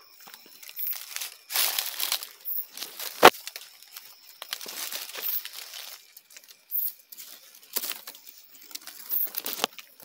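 Leaves and branches rustling and brushing against the camera as someone pushes through forest undergrowth, in irregular bursts, with one sharp knock about three seconds in.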